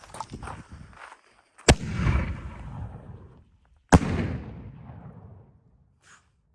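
Firework salute shell firing: a sharp boom as it launches from the mortar tube, then about two seconds later a louder report as the salute bursts, each followed by a long rolling echo that fades out.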